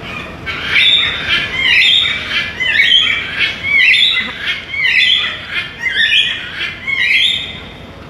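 Blue-and-yellow macaw squawking, a loud rapid series of harsh calls at about two a second that stops about a second before the end.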